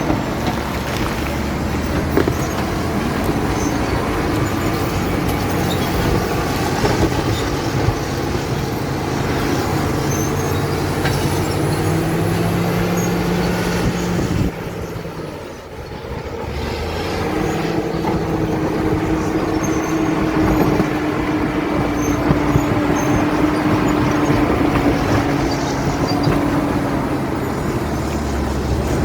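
Caterpillar D7 bulldozer's diesel engine running, its note rising and falling with scattered knocks. About halfway through it drops off sharply for about two seconds, then builds back up.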